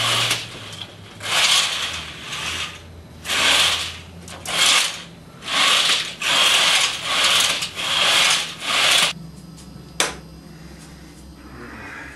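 Curtain runners rasping along a curtain rod as the curtains are pulled back and forth, in repeated strokes about once a second, then one sharp click about ten seconds in.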